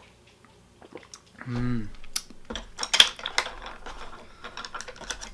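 A short, falling vocal sound after a sip of drink, then a run of light clinks and clicks as a glass is set down and chopsticks knock against the dishes on the tray.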